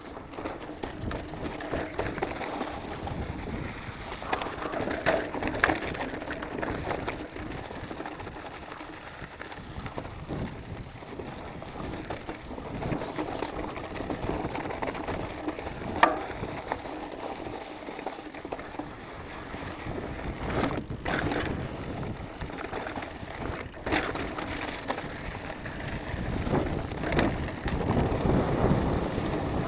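Specialized Enduro Comp 650b mountain bike riding over rocky singletrack: Maxxis Minion tyres crunching over gravel and loose stones with the bike rattling, and sharp knocks as the wheels hit rocks, the loudest about sixteen seconds in. The noise grows louder near the end.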